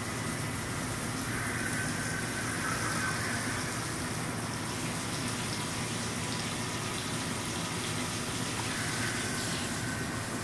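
HAAS VM-3HE vertical machining center milling a metal block under flood coolant: a steady rush of coolant spray and spindle noise, with a higher-pitched cutting tone that comes in about a second in and again near the end.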